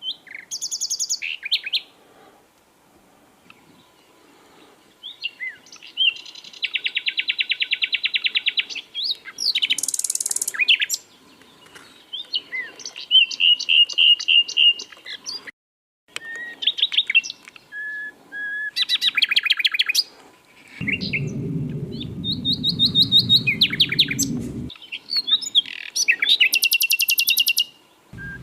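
Sikatan londo (flycatcher) singing a varied, rapid song of fast trills, quick repeated chattering notes and very high buzzy phrases, with some phrases breaking off suddenly. A low rumbling noise runs under the song for a few seconds about two-thirds of the way through.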